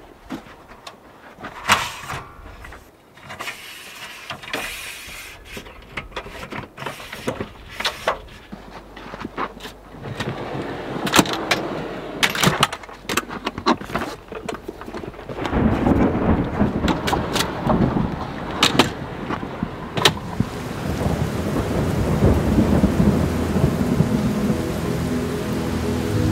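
Thunderstorm: steady rain with scattered sharp clicks and knocks. About two-thirds of the way through, a long low roll of thunder sets in and the rain grows heavier.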